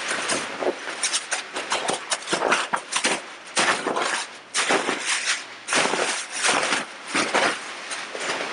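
Large air-filled plastic bags crinkling and rustling loudly as they are thrown and shoved about, in irregular bursts with a few short lulls.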